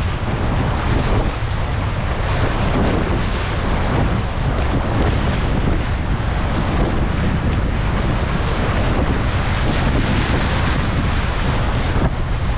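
Rushing whitewater in a high-flowing river, with waves breaking and splashing over the bow of a whitewater kayak as it paddles through. Steady and loud throughout, with heavy wind buffeting on the microphone.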